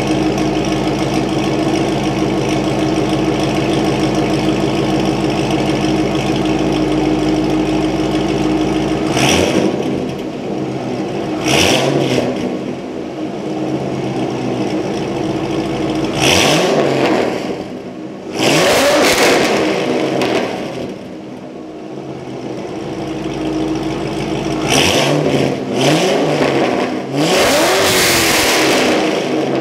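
C5 Corvette V8 through long-tube headers, X-pipe and Corsa Extreme axle-back mufflers, idling steadily for about nine seconds, then blipped repeatedly, with about seven quick revs, one longer near the middle and another near the end. The exhaust is very loud and still leaks at two joints.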